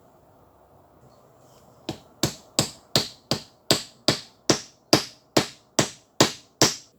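A dengle hammer striking metal in a steady series of about thirteen sharp, ringing blows, a little under three a second. The blows start about two seconds in and stop just before the end.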